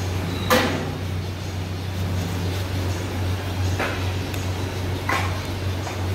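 Steady low hum of machinery, with three short sharp sounds over it; the first, about half a second in, is the loudest.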